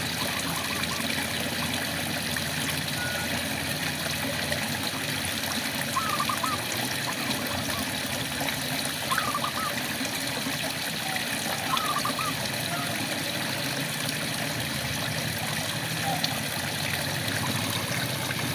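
Steady rain, with frogs calling a few times: short runs of quick chirping notes every few seconds.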